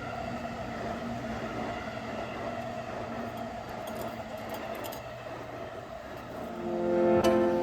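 Steady droning background music with sustained tones, joined near the end by plucked-string music.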